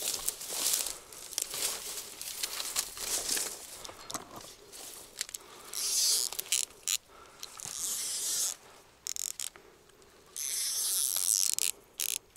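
Rustling of footsteps through dry grass and reeds, then a spinning reel buzzing in several short spells, each about a second long, that start and stop abruptly while a hooked carp is being played.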